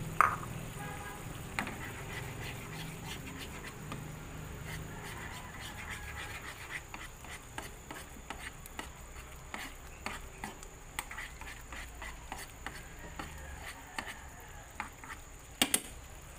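Metal spoon stirring a simmering sauce in a nonstick frying pan, with scattered light clicks and pops as the cornstarch-thickened sauce bubbles. A sharper knock comes just after the start and a double knock near the end, over a steady low hum.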